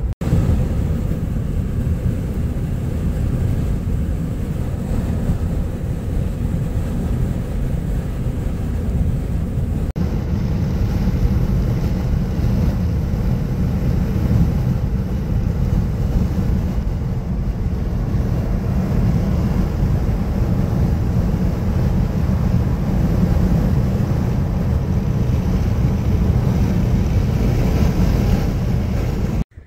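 Steady road and wind rumble inside a car's cabin as it drives at highway speed.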